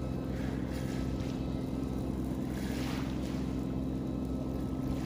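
Steady drone of the speedboat's engine towing a parasail, with wind noise on the microphone.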